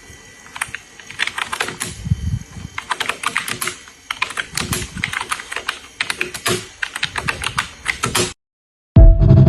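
Typing on a computer keyboard: rapid, irregular key clicks with a few heavier thuds, stopping abruptly. After a short silence, a loud sustained tone sounds near the end.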